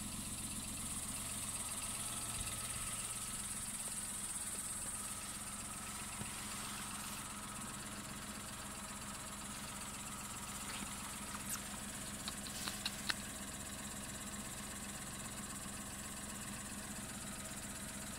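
A steady low mechanical hum with a high hiss over it that fades after the first few seconds, and a few light clicks about twelve seconds in.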